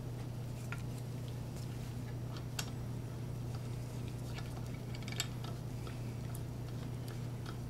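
A metal T-handle being fitted into a pressure pot's frame: scattered faint clicks and taps, two of them sharper, over a steady low electrical hum.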